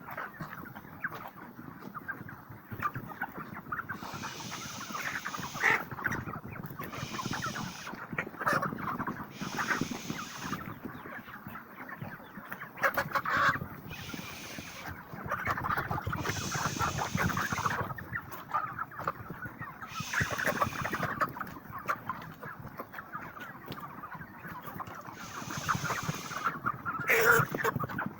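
A large flock of broiler chickens clucking and cheeping together in a poultry house, a dense continuous din, with stretches of hiss that come and go every few seconds.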